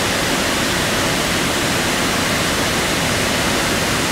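An 18-foot waterfall running full after heavy rain: a steady, even rush of falling water.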